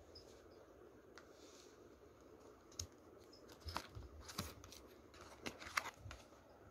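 Handling of a Blu-ray disc package: a few sharp plastic clicks and short scrapes as a disc is pried off its hub in the cardboard digipak and lifted out. The clicks cluster in the second half.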